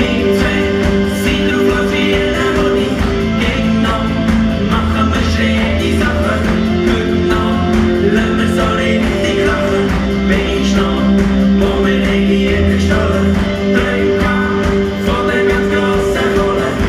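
Upbeat pop-rock song with guitar and a steady beat, playing an instrumental stretch between sung lines.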